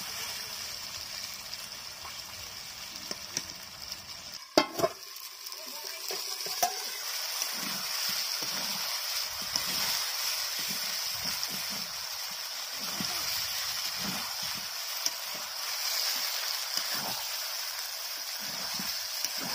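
Chicken pieces and potatoes sizzling in hot mustard oil in a large metal wok, with a steady hiss, while a spatula stirs and scrapes them in small clicks and scuffs. One sharp knock stands out about four and a half seconds in.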